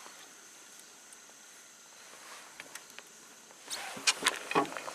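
Faint steady outdoor background with a thin high hiss. From about three and a half seconds in, a quick run of sharp clicks and knocks.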